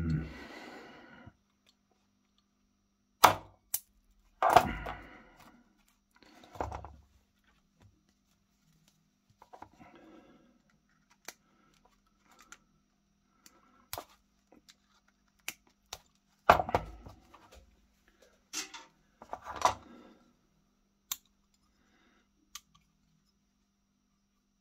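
Irregular sharp clicks and knocks of small steel tools and the metal parts of an antique percussion pocket pistol being handled and set down on a workbench, a dozen or so, the loudest clustered a few seconds in and again about two-thirds of the way through.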